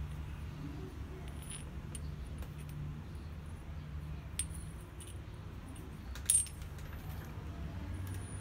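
Small steel die pieces clicking and clinking lightly against a steel pipe guide and each other as they are handled, over a steady low hum. The loudest clink comes about six seconds in.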